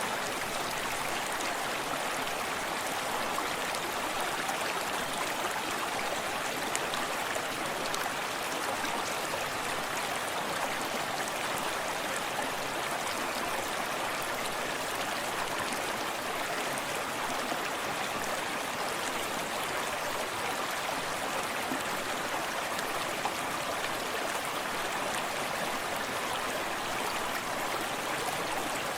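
Forest stream running steadily, water splashing and burbling over stones with a steady rushing hiss.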